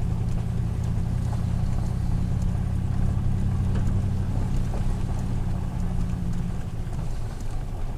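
Car engine running steadily while driving, with road rumble underneath; the engine note drops near the end as the car slows.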